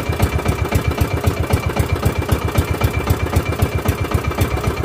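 Small engine of a motorized outrigger boat running steadily, an even rapid putter of about eight beats a second, with a thin steady high whine over it.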